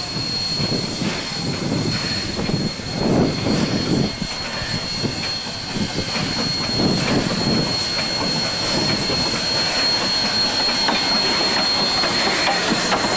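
Steam locomotive W 192 and its train running along the track: a steady rolling rumble with wheel clatter and low swells every second or so.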